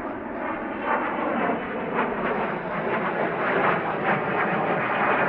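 Hawker 850XP business jet's twin Honeywell TFE731 turbofans at takeoff power, a noisy jet rumble with crackle growing steadily louder as the jet rolls and climbs out.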